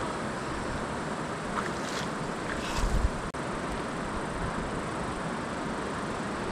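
Steady rushing noise of a moving vehicle, with a short low bump about three seconds in.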